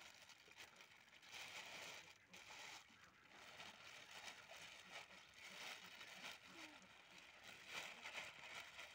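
Near silence: faint outdoor background noise that swells and fades a few times.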